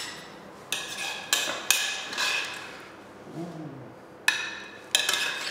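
Metal kitchen utensils clinking against a pan and plates while a dish is plated: about five sharp metallic knocks, each ringing briefly, three close together early on and two near the end.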